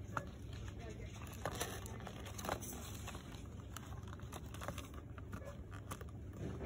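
Shop ambience: a steady low hum with scattered small clicks and rustles of handling, a slightly louder click about two and a half seconds in.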